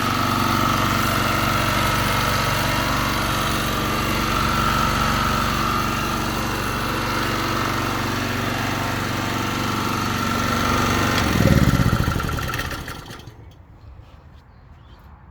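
A 3 kW petrol generator's engine running steadily, then shut off about eleven seconds in, its pitch falling as it winds down to a stop.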